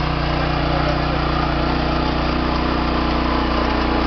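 Walk-behind rototiller's small engine running steadily while its tines churn the soil.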